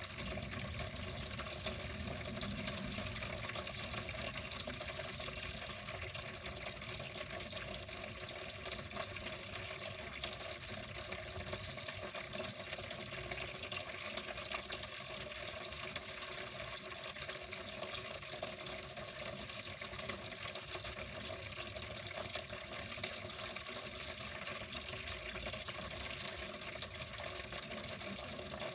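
Water flowing steadily, an even, unbroken splashing rush.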